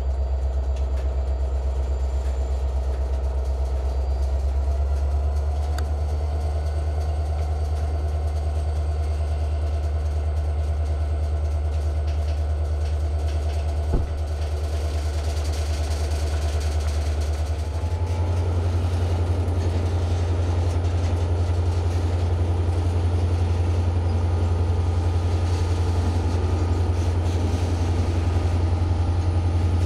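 Double-stack intermodal freight train rolling past with a steady low rumble of wheels on rail. A single sharp click sounds about 14 seconds in, and the low rumble shifts up in pitch a few seconds later.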